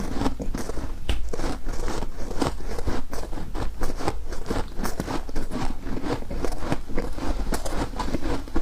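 Close-up crunching of frosty ice, a dense run of sharp, irregular crackles several times a second.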